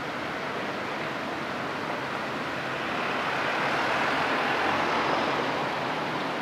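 Steady rushing of wind and water at the shoreline, swelling for a couple of seconds in the middle and easing again near the end.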